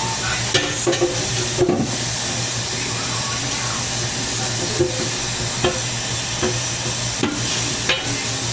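Zucchini frying in a pan of oil with a steady sizzle, broken by a few short clicks and taps.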